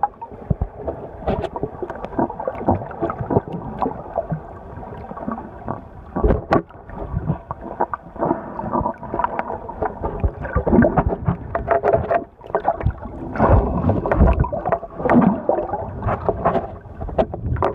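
Muffled underwater water noise heard through an iPhone microphone sealed in a waterproof case: sloshing and gurgling water with many irregular thumps and knocks.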